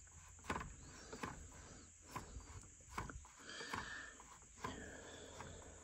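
Faint, irregular clicks and knocks with light rustling, from handling a dismantled chainsaw and its parts on a workbench.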